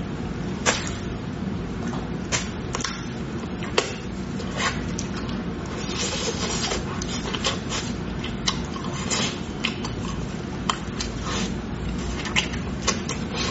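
Eating sounds: wet chewing, sucking and lip smacks as braised meat is bitten off the bone, with sharp clicks scattered throughout over a steady low hum.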